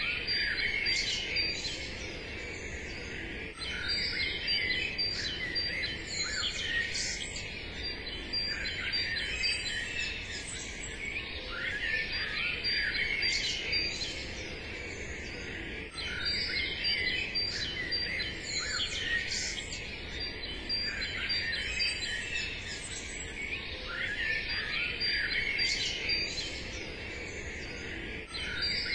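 Many songbirds chirping and singing over a faint steady background hiss. It is a looped nature-ambience recording: the same stretch of birdsong repeats about every twelve seconds.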